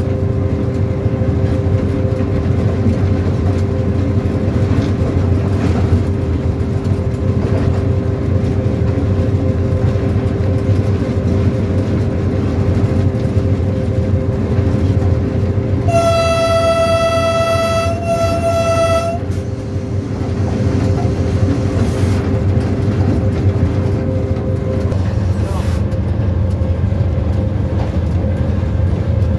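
Diesel locomotive running at speed, heard from the cab: a loud, steady rumble of engine and wheels on the rails, with a steady hum that stops a little after three-quarters of the way through. A little past halfway the locomotive's horn sounds, a long blast and then a short one, and it starts to sound again right at the end.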